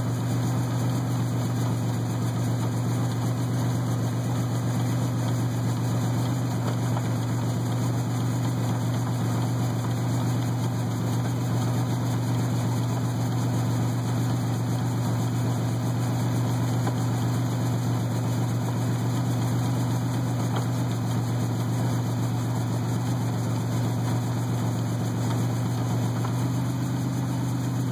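A 4x4's engine and drivetrain running steadily with extra mechanical noise, which the owner suspects comes from inside the transfer case. The sound shifts slightly near the end.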